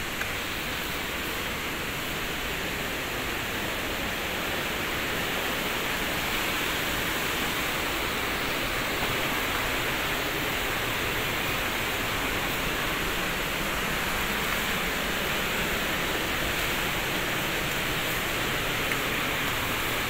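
Steady rush of a swollen, muddy river pouring fast over rocks toward the Blangsinga waterfall, running high and brown after a night of rain.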